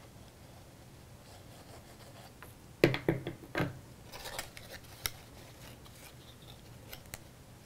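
Cardstock paper being handled and pressed together as a glued tab is set in place: a short cluster of crisp clicks and scrapes about three seconds in, the loudest part, then a few faint ticks and rustles.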